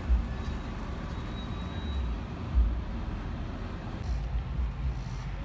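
Virginia Railway Express commuter train going by: a steady low rumble with uneven heavy low thumps.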